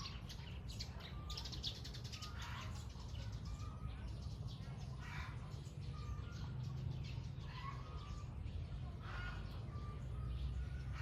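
Birds calling outdoors, with short chirps repeating roughly once a second over a steady low rumble.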